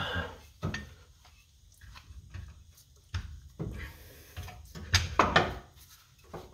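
Hydraulic suspension cylinder knocking and scraping against the steel lower A-arm as it is worked into the coil pocket. A few sharp clicks and knocks, with a quick cluster of louder ones about five seconds in.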